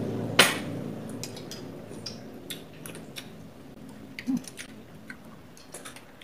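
Metal spoons clinking and scraping in small glass dessert cups of buko salad, with one sharp clink about half a second in and many light ticks after it.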